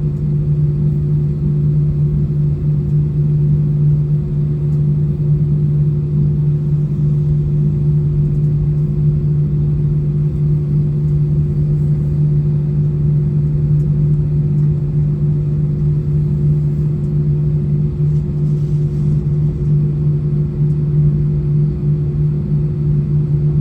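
Steady cabin rumble of an Airbus A320 taxiing after landing, with its engines at idle, and a constant low hum under it that does not change.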